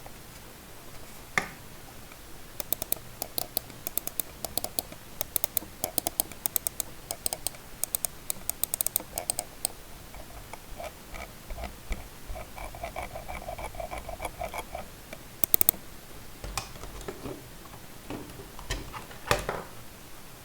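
Budget computer mouse buttons clicked in quick runs, then a stretch of softer, lower, evenly spaced ticks from the scroll wheel, ending with a few louder single and double clicks.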